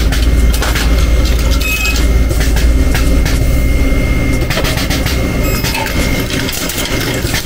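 Resistance spot welder working on a car body panel: a loud, steady low electrical hum with sharp clicks over it, the hum easing off about four and a half seconds in.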